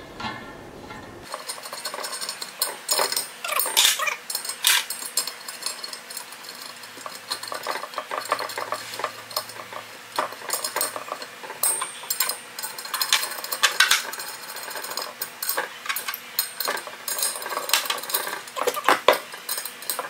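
Steel hex key and connector parts working in an aluminium truss cube's corner fitting: a dense run of irregular metallic clicks, clinks and knocks starting about a second in.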